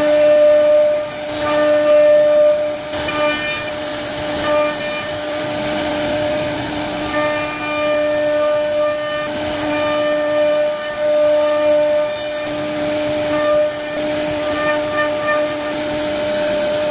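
CNC router spindle running at high speed while its bit carves into a wooden panel. It gives a steady high whine over a hiss of cutting that swells and eases as the tool moves.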